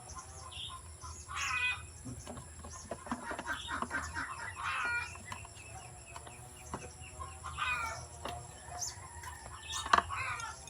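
Chickens clucking in short repeated calls, with a few sharp clicks in between, the loudest near the end.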